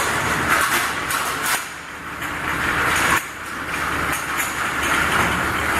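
Glass bottle washing machine running: a steady, hissing mechanical noise that drops suddenly in level about a second and a half in and again about three seconds in.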